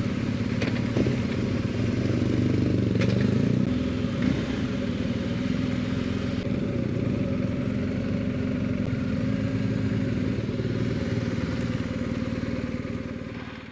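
BMW R1250 GS Adventure's boxer-twin engine running at low revs while the bike rolls at walking pace over cobblestones, with a few light clicks and clatters in the first few seconds.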